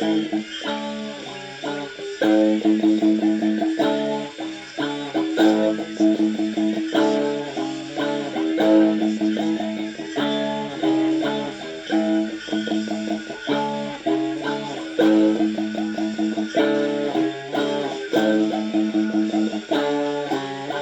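Guitar music: chords played in a steady, driving rhythm, with no singing.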